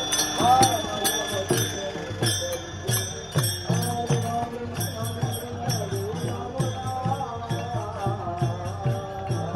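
Devotional procession music: a two-headed barrel drum (mridang) beaten in a steady beat of about two to three strokes a second, with small hand cymbals jingling and voices chanting.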